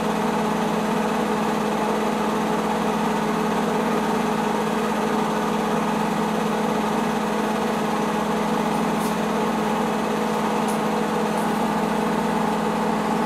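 8 mm film projector running with a steady mechanical hum and whir, unchanging throughout.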